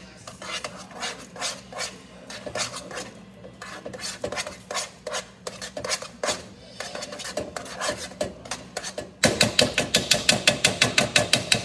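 A utensil stirring thick mashed potatoes in a pot, with irregular scraping strokes against the pot. About nine seconds in the stirring turns into faster, louder beating at about six strokes a second.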